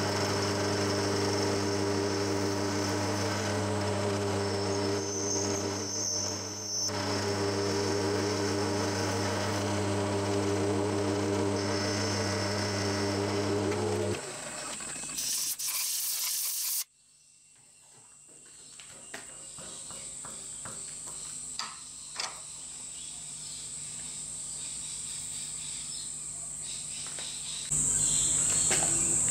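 Vertical milling machine running, its end mill cutting a rebate into the end of steel bar stock under flood coolant, a steady motor and cutting sound that stops about halfway through. A short hiss follows, then only a faint, steady high-pitched whine remains.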